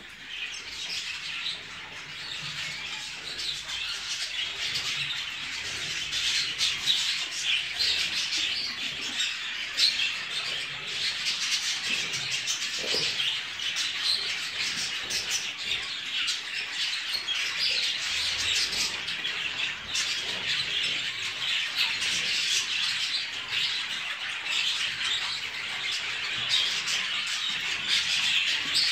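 A flock of budgerigars chattering and warbling continuously in a dense, high-pitched din of overlapping calls, growing louder over the first few seconds.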